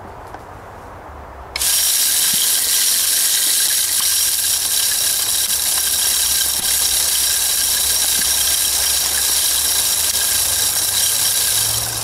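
Power Feeder round automatic feeder's 12-volt motor starting up about a second and a half in and spinning its propeller at the lower speed setting, flinging sunflower seeds. It runs with a steady high whine and stops near the end.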